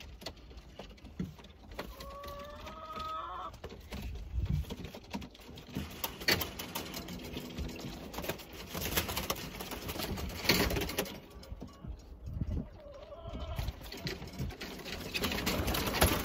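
Domestic pigeons cooing, with scattered sharp knocks and clatter. A short rising whine comes about two to three seconds in.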